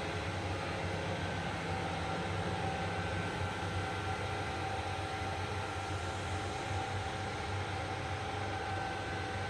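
Steady machinery noise: a low hum with faint, steady higher whining tones and no breaks or impacts.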